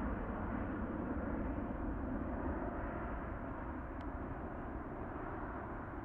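Jet noise from a Boeing 777-300ER's twin GE90-115B turbofans as it climbs away after takeoff: a steady, low rumbling hiss that slowly fades as the jet recedes.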